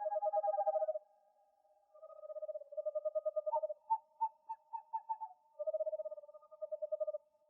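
Owl calls: rapid trills of fast repeated notes at two pitches, one lower and one higher, in four bouts with short pauses between.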